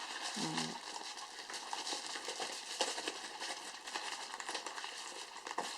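Retail packaging of a pair of laptop RAM modules being opened by hand: a run of light crinkles, clicks and scrapes.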